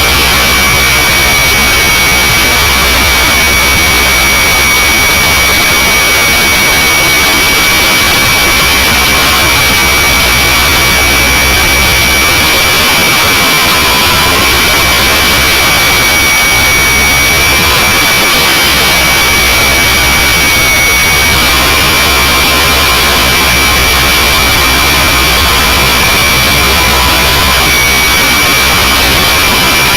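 Hirobo SRB radio-controlled helicopter in flight, heard from its on-board camera: a loud, steady high whine over dense rushing noise, its pitch wavering slightly as the rotor speed shifts.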